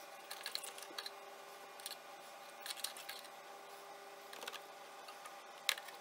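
Fine paint brush bristles scratching against the bobbin-area parts of a Brother Innovis 900D sewing machine, brushing out lint and dust, in several short scratchy strokes. A sharper click comes near the end.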